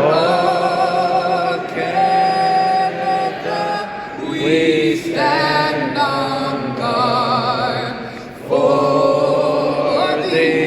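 A national anthem sung by a soloist with strong vibrato, holding long notes, with a large arena crowd singing along.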